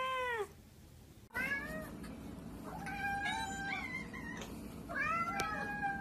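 Domestic cats meowing: first a single long meow that rises and falls in pitch, then, from about a second in, a group of cats meowing for food again and again, some calls overlapping. A faint steady hum sits under them, and there is a short sharp click near the end.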